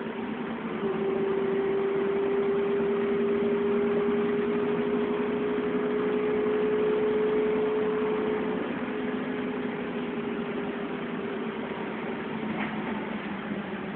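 Dennis Trident double-decker bus heard from inside the passenger saloon: engine and drivetrain running under a steady road noise, with a whine that climbs slightly in pitch for several seconds, then eases off and drops in level about eight seconds in.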